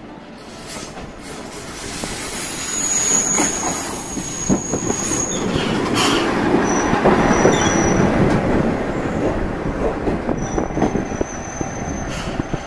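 A single-car diesel railcar pulling into a station and coming to a stop. It grows louder as it draws near and passes close by, with a rumble and a few wheel clacks, and thin high-pitched squeals come and go as it slows.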